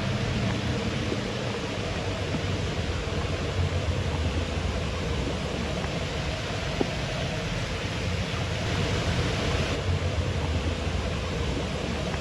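Waterfall rushing steadily: an even noise of falling water.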